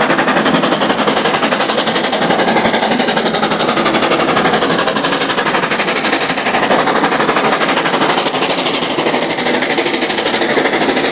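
LMS Stanier 8F 2-8-0 steam locomotive working hard under load, its exhaust a loud, fast and steady stream of beats.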